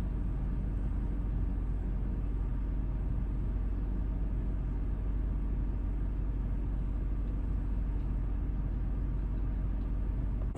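Steady low rumble of vehicle engines running.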